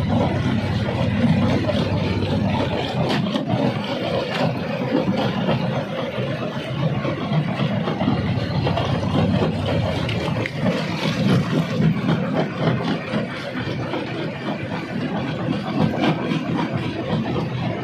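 Rock-crusher machine running steadily, with rock knocking and grinding inside it over the drone of its motor.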